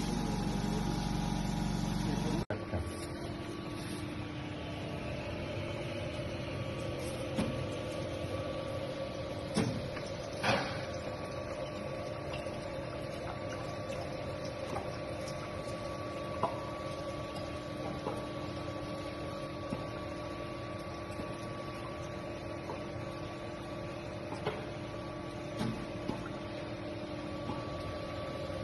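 A mini spray dryer's machinery runs with a steady hum and a constant whine, with a few light knocks and clinks now and then. A louder, deeper motor hum in the first couple of seconds cuts off suddenly.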